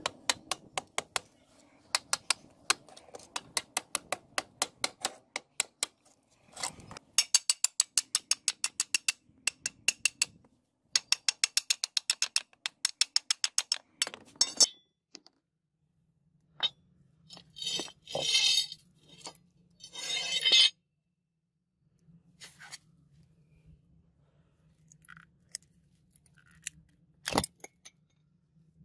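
Claw hammer tapping a steel chisel into the rusted metal sleeve of a sword handle: runs of sharp metallic strikes, about three a second at first, then faster runs of about six a second. After a short pause come a few seconds of rough scraping and cracking, then scattered light knocks and one sharper strike near the end as the rotten wooden grip is split apart.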